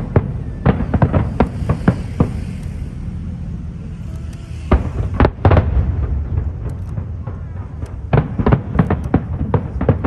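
Fireworks bursting in clusters of sharp bangs: a run in the first couple of seconds, another about halfway, and a denser run near the end, over a steady low rumble.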